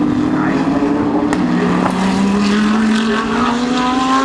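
Several GT3 race car engines running hard, their pitch rising steadily as they accelerate.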